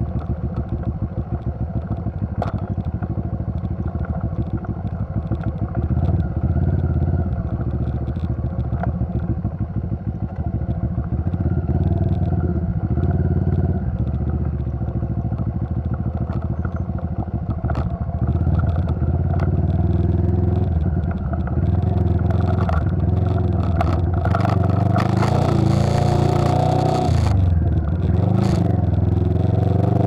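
Motorcycle engine running while the bike rides over a rough gravel road, its pitch rising and falling with the throttle and dipping briefly then climbing again near the end, with knocks and rattling from the bike over the bumps.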